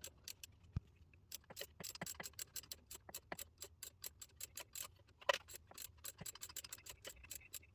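Ratchet wrench clicking in rapid, even ticks as the battery cable nut on the starter is run down snug.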